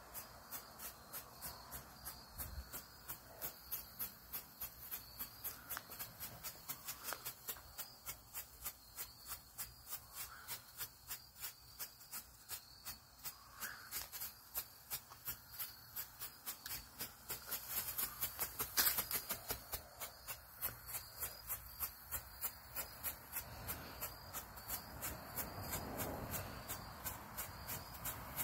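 Ground strobe firework pulsing, a sharp pop with each flash at about two a second, closer together near the end, with one louder crack about two-thirds through.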